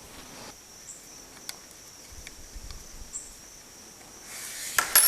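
Light clicks and ticks of small screws and parts of a shotgun conversion kit being handled, over a faint steady high whine. Near the end comes a louder rustling clatter with a few sharp clicks.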